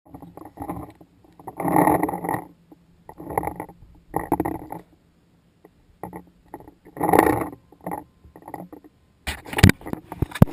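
A cat rummaging in trash: irregular bursts of rustling and crinkling. A few sharp knocks come near the end.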